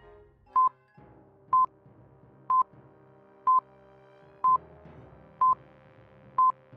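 Countdown timer sound effect: a short electronic beep once a second, seven times, over faint background music with long held notes.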